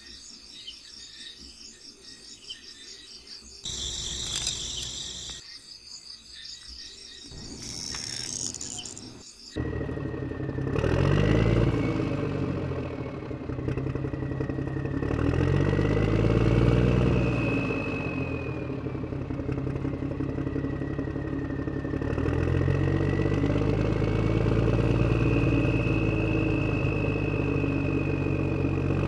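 Faint bird and insect chirping at first. About a third of the way in, a dubbed tractor engine sound effect starts running loudly, its revs rising and falling several times.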